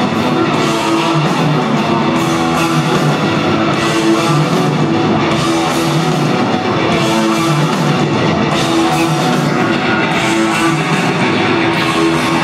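Live hard rock band playing an instrumental passage: electric guitar riff over a drum kit, loud and unbroken, heard from the audience.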